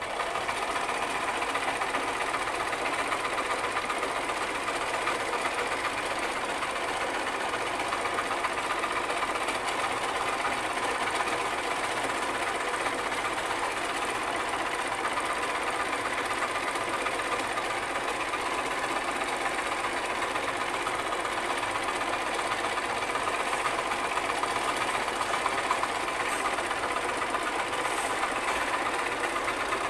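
Sewing machine running steadily without a break, an even mechanical clatter of stitching.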